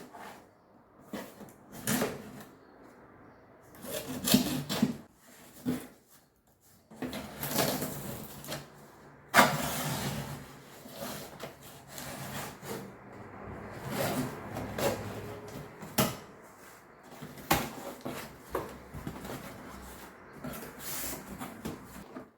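Parts of a clothing rack being handled and adjusted: irregular knocks and clicks with some scraping and rubbing, the sharpest knock about halfway through.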